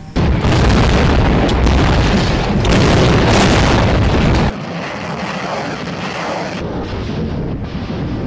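Combat audio: a loud, sustained blast and rumble of explosions starts suddenly just after the opening and cuts off abruptly about four and a half seconds in. It is followed by a quieter, steady noise of a truck-mounted multiple rocket launcher firing.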